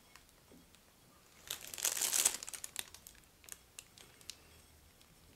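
Plastic piping bag crinkling as it is squeezed to pipe chocolate mousse, with a burst of rustling about one and a half to two and a half seconds in and a few faint clicks around it.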